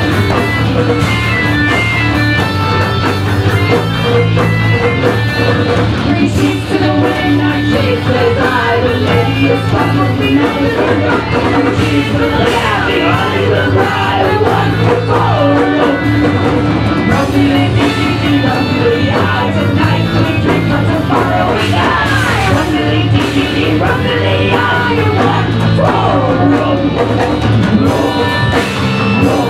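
A live rock band playing loud: drum kit, electric bass, guitar and accordion, with a woman singing over the band.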